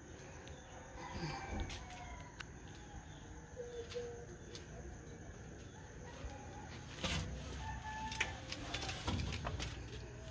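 Roosters crowing faintly, with a few sharp knocks and bumps in the second half.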